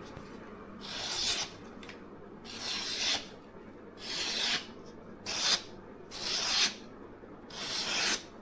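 Steel kitchen knife blade stroked back and forth across an abrasive sharpening surface, six separate rasping strokes a little over a second apart.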